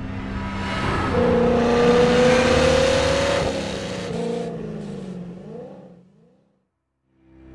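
Muscle car engine revving hard during a burnout, with a loud hiss of spinning tyres over it; the revs climb steadily, then fall away in a few uneven dips and fade out about six and a half seconds in.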